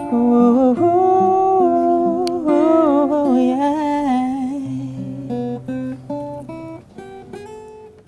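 Closing bars of a slow acoustic-guitar ballad: a voice hums a wordless, gliding melody over plucked guitar, then single picked guitar notes over a low held bass note as the music fades out near the end.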